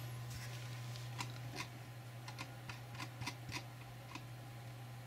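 About a dozen faint, irregular light clicks over a steady low hum, the clicks stopping about four seconds in.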